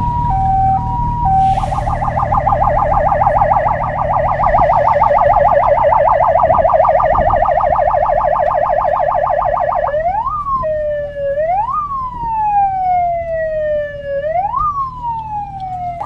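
Fire vehicle's electronic siren cycling through its tones. It starts on a hi-lo two-tone, switches about a second and a half in to a fast warbling yelp, and about ten seconds in to a slow wail that rises quickly and falls slowly, repeating every two to three seconds. A low rumble runs underneath.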